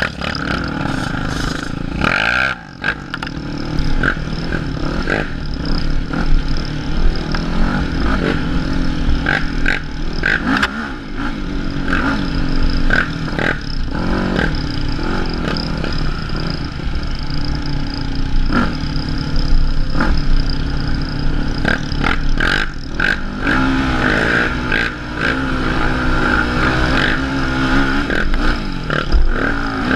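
Sport quad (ATV) engine running and revving up and down as it rides a rough dirt trail. Frequent knocks and rattles come from the bumps.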